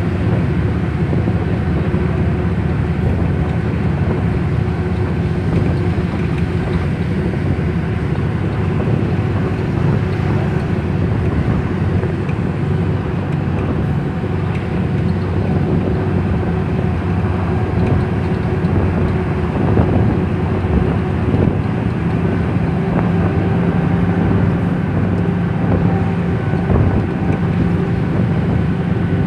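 Engine and road noise of a moving vehicle, heard from inside the cabin: a steady drone with a low hum.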